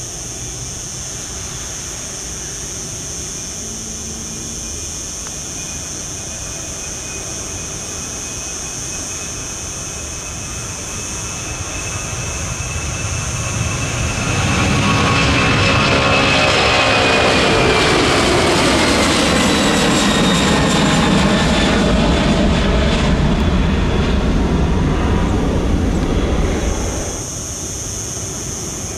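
Boeing 767-300ER's twin jet engines at high power as the airliner passes along the runway. The sound swells over a few seconds and then holds loud, with a whine that falls in pitch as it goes by. It cuts off suddenly near the end.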